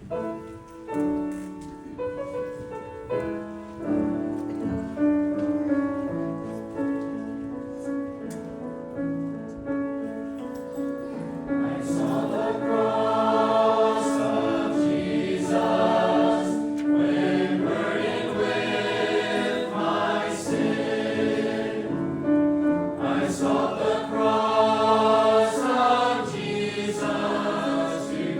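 Church choir singing a gospel song, the sound growing fuller and louder about twelve seconds in.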